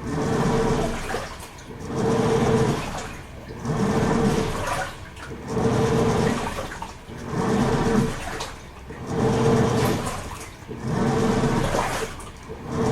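Toshiba AW-42SEE4 top-loading fully automatic washing machine agitating its load in water. The motor hums in regular surges about every one and a half seconds, with water churning and sloshing in the tub between them.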